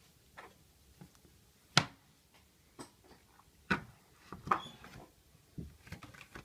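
Irregular sharp clicks and taps of a small screwdriver and the iPhone 5 being handled on a work surface while its two bottom pentalobe screws are taken out; the loudest click is about two seconds in.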